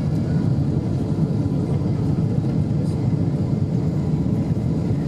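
Steady low rumble of a Boeing 747-8 heard inside the passenger cabin: its GEnx engines and the rush of air over the airframe, with flaps extended on approach.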